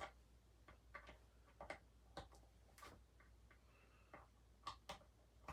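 Faint, irregular clicks and light taps, about eight in all, from vacuum cleaner parts being handled.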